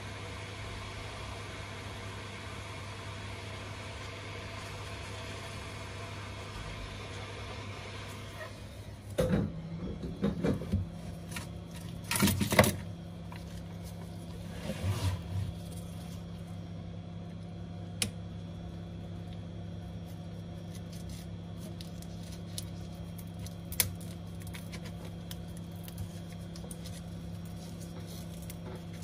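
Hand-held heat gun blowing steadily on the edge of a cracked tablet screen, warming the adhesive under the glass, then switched off about a third of the way in. Clattering of tools being handled and set down follows, the loudest sound, with a few sharp clicks later and a low steady hum underneath.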